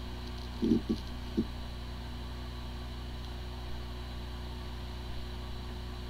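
Hard drive spinning with a steady hum and no clicking: the sound of a drive whose disks spin normally but that cannot be accessed, a symptom of disk firmware corruption. A few brief low sounds come about a second in.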